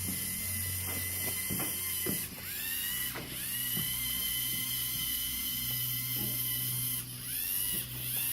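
Small electric gear motors of a robot whining steadily. They cut out briefly about four times and spin back up with a rising whine, with a few light mechanical clicks near the start.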